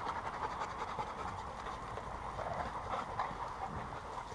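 A pack of dogs panting as they mill about close by, under a steady rushing noise.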